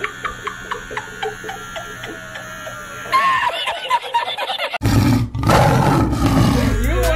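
A teenage girl's short pained cries over the steady buzz of a tattoo machine. About three seconds in, a burst of a man's high, wheezing laughter from a meme clip is edited in. It is followed by her loud scream.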